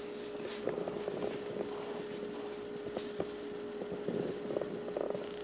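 A steady hum with scattered faint clicks and brief rustles.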